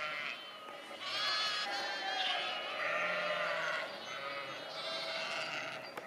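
Sheep bleating: several long, quavering bleats one after another.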